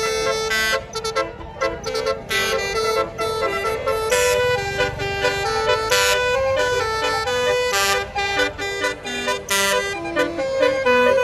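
Tour bus Basuri musical air horn playing a 'telolet' melody of quick stepped notes, cut by short loud bursts about every two seconds.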